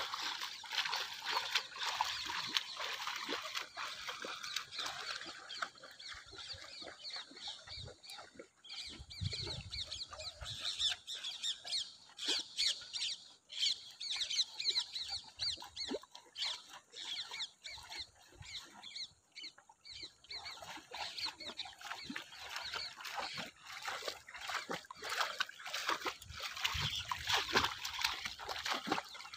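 A dense, continuous chorus of animal calls, busiest at the start and again near the end.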